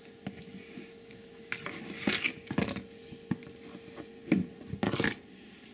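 A plastic flour canister's lid being handled and a metal measuring cup knocking and scraping inside it as flour is scooped out. The knocks and clinks are irregular and scattered.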